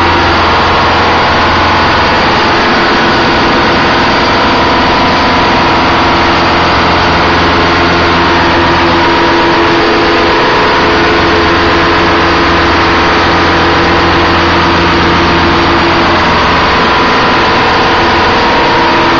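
Detroit Diesel 8V92 two-stroke V8 marine diesel running, loud and steady, heard in the engine room, its note shifting slightly about halfway through and again near the end.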